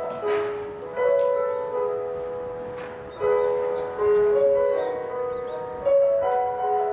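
Background music: a slow piano melody, with notes struck about once a second and left to fade.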